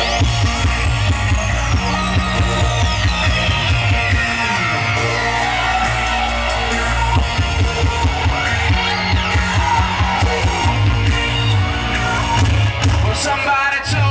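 Loud rock music with a heavy, steady beat, played over the show's outdoor sound system. Several long falling whistle-like sweeps run through it in the first few seconds.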